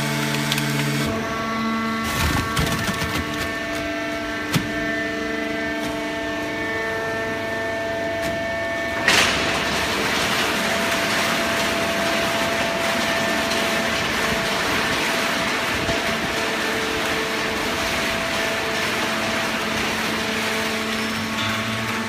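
Automatic horizontal hydraulic baler running, its motor and hydraulic pump giving a steady hum of several tones. Two sharp metallic knocks come from the machine, the louder one about nine seconds in, after which a steady rushing noise joins the hum.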